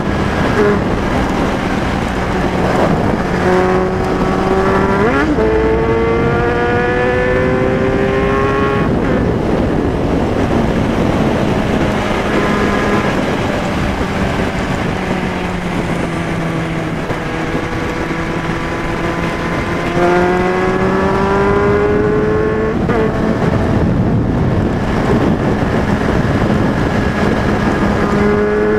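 Motorcycle engine pulling up through the revs over steady road and wind noise. The pitch climbs for several seconds twice, with a brief dip partway up, holds lower and steadier in between, and starts climbing again near the end.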